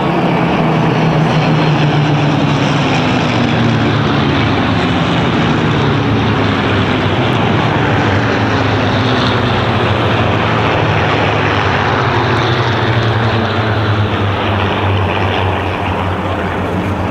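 Massed V12 piston engines of a formation of Supermarine Spitfires flying past in a steady drone. The engine note slowly falls in pitch as they pass and fades slightly near the end.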